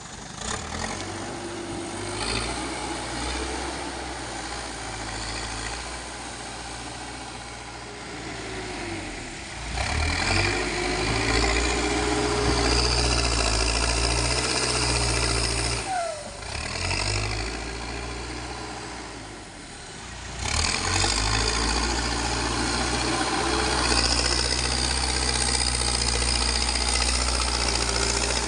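Backhoe loader's diesel engine running, revving up under load for two long stretches in the second half and easing back between them, with a whine that rises and falls.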